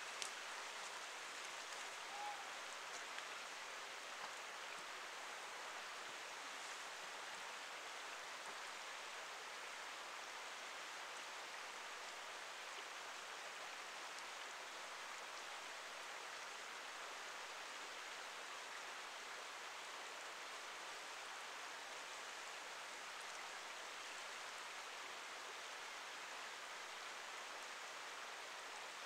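Steady rushing water, an even hiss without rhythm, with one short faint note about two seconds in.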